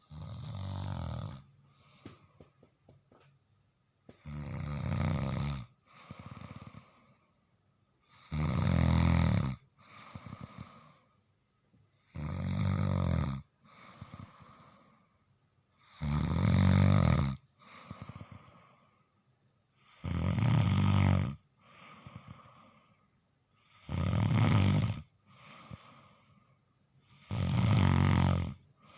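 A sleeping person snoring through the nose. There are eight loud snores, one about every four seconds, and each is followed by a quieter breath.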